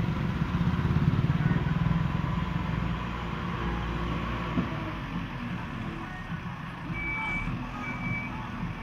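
Backhoe loader's diesel engine running, loudest in the first three seconds. Near the end, a reversing alarm starts beeping in short repeated beeps.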